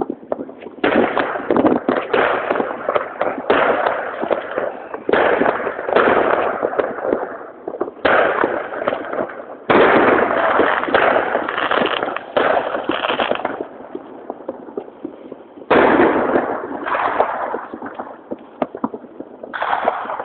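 Fireworks going off in a dense run of bangs and crackles. The loudest waves come about a second in, near the middle and again near the end.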